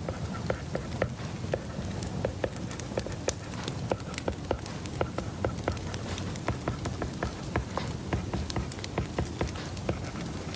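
Irregular light clicks and taps, a few a second, over a steady low hum: desk sounds of someone studying.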